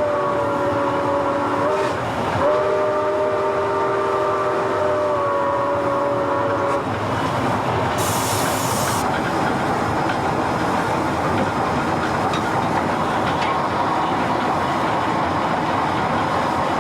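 Milwaukee Road 261's chime steam whistle blowing, a steady chord of several notes that breaks off briefly about two seconds in and then sounds again for about four more seconds. After it stops, the steam locomotive is heard running, with a burst of steam hiss lasting about a second.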